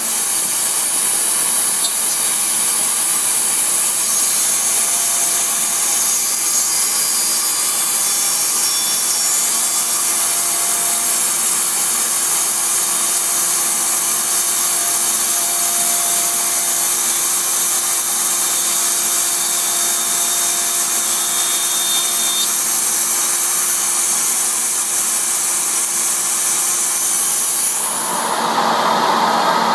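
Router spindle on a CNC twist-turning lathe cutting a hollow spiral into a wooden turning: a steady, high-pitched whine with the hiss of the cutter in the wood. Near the end the sound changes to a lower rushing noise.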